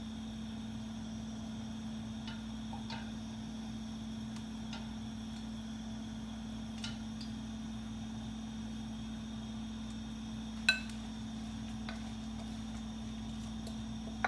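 A steady low hum, with scattered faint ticks and one sharp ringing clink of kitchenware about ten and a half seconds in.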